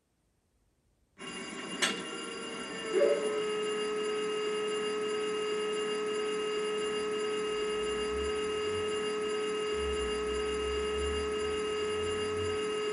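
Sound-fitted Bachmann Class 70 model locomotive playing its diesel start-up through a small EM1 speaker: about a second in, the sound cuts in, with a sharp click and a short thump, and settles into a steady idle with a whining tone. A low rumble comes and goes under the idle in the second half.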